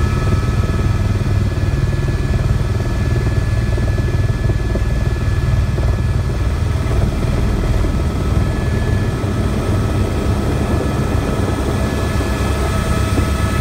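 Helicopter engine and rotor noise heard from inside the cabin: a steady, loud low drone with a thin, constant turbine whine above it, as the helicopter flies close to the ground.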